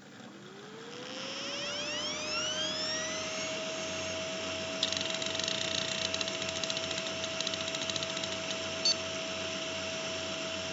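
Old 1990s IDE hard drive spinning up: a whine rises in pitch over the first two to three seconds, then holds steady. From about five seconds in, rapid seek clicking chatters over it. The noise is really loud, as is typical of drives of that era.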